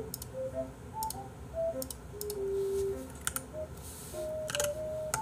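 Scattered clicks of computer keyboard keys being pressed, about six in a few seconds, some in quick pairs, over a soft background music melody.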